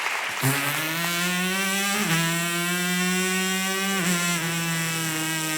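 A man's vocal imitation of an onboard MotoGP racing motorcycle: one long buzzing engine note that dips briefly in pitch about two and four seconds in.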